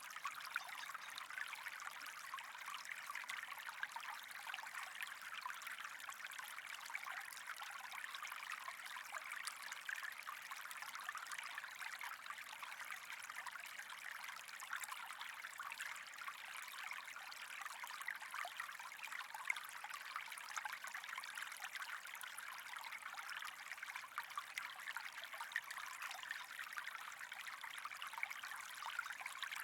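Water running steadily, an even fine-textured splashing with no break or change.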